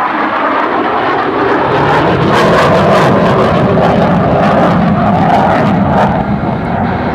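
F-15 Eagle's twin jet engines running loud in a demonstration pass. A deep rumble builds about two seconds in, with crackling through the middle of the pass.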